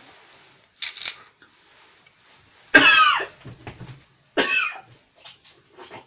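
A man coughing hard, twice, about three and four and a half seconds in.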